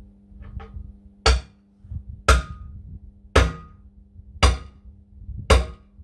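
Hammer striking a tractor wheel: five sharp metallic blows about one a second, each ringing briefly.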